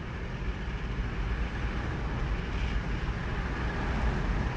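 Steady low rumble with a hiss on top, an unchanging background noise with no distinct events.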